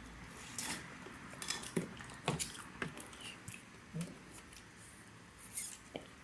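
Eating sounds: soft, scattered clicks and smacks of chewing a McMuffin and handling the food, irregular, about one or two a second.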